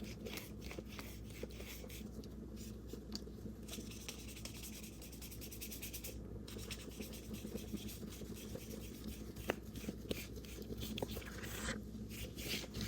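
A paintbrush loaded with acrylic paint scratching and rubbing in short strokes across gesso-primed mixed media paper, over a low steady hum.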